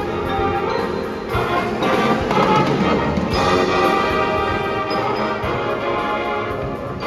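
Marching band playing: brass instruments sounding sustained chords, with drum hits underneath.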